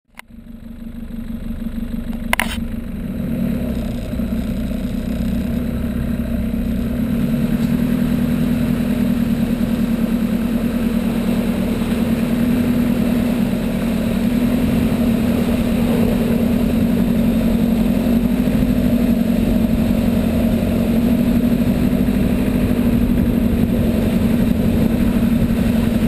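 Nissan Patrol 4x4's engine running steadily under load while driving through floodwater on a muddy track, with one sharp knock about two seconds in.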